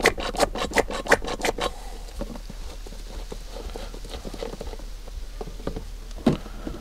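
Hand oil pump on a quart oil bottle being worked to fill an outboard, giving a quick run of sharp clicks for about the first second and a half, then scattered fainter clicks and a soft knock near the end.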